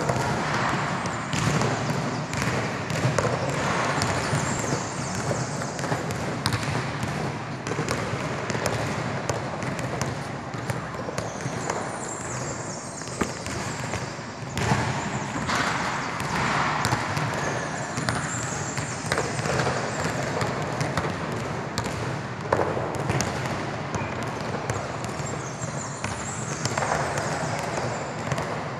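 Basketball being dribbled on a hard court floor, a run of repeated bounces over a steady background noise.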